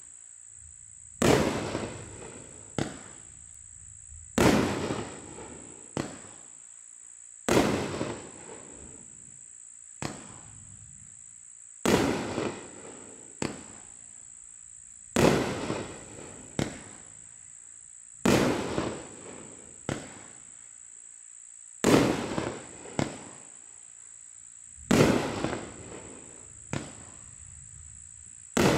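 A 500-gram consumer firework cake (multi-colour glittering willow) fires shot after shot, about every three seconds. Each shot is a loud bang with a decaying rumble, followed about a second and a half later by a fainter crack. A steady high-pitched tone runs underneath.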